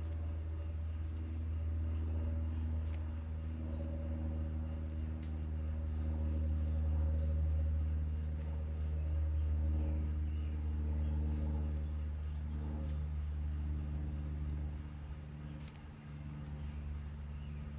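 A motor engine running steadily: a low hum with pitched tones above it that drift slightly up and down, easing off briefly near the end.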